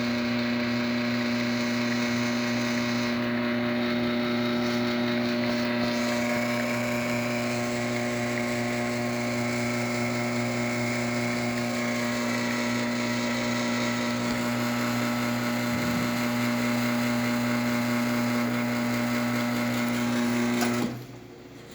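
Lelit Bianca espresso machine's rotary pump running at a steady hum while pulling a shot, stopping abruptly about 21 seconds in as the shot ends. The machine has a vibration that is hard to get rid of.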